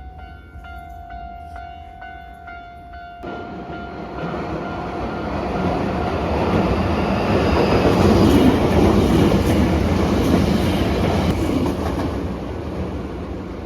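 Japanese level-crossing warning bell ringing about twice a second, cutting off suddenly about three seconds in. A Hankyu electric train then passes over the crossing, its rumble building to loudest in the middle and fading near the end.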